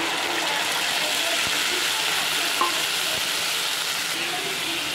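Wet ground spice paste (ginger, garlic, cumin and chilli masala) sizzling steadily in hot oil with fried onions in a kadai, just after being tipped in.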